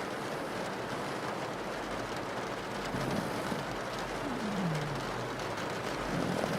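Steady rain on a window, with a pug snoring in short low snores about three seconds apart and one falling whistle-like snore partway through.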